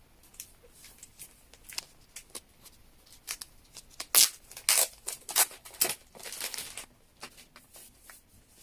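Album packaging being handled and opened: a run of crinkles, crackles and sharp clicks of plastic wrap and card, busiest and loudest in the middle, with a longer rustle a little past halfway.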